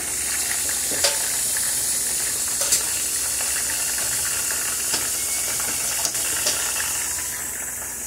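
Battered chicken thighs sizzling in a pan of coconut oil and coconut milk: a steady frying hiss with a few sharp pops.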